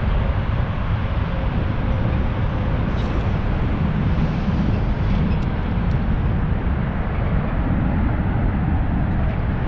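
Steady outdoor rushing noise, heaviest in the low end, with a few faint clicks.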